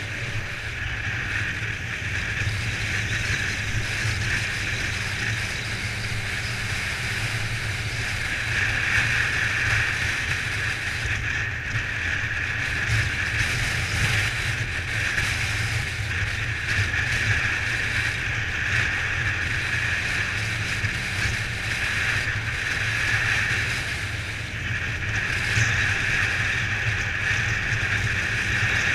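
Kawasaki ZZR1400's inline-four engine running at a steady road speed, mixed with wind rushing past the bike-mounted camera.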